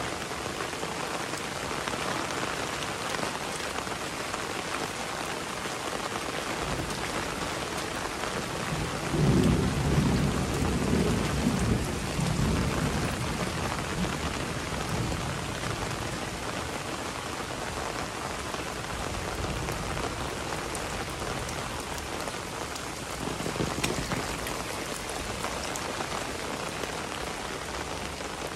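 Heavy rain falling steadily, with a low rumble of thunder about nine seconds in that swells and dies away over several seconds, and a weaker rumble later on.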